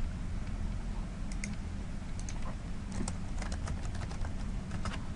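Computer keyboard typing in short runs of keystrokes, as a word is entered into a software dialog, over a low steady hum.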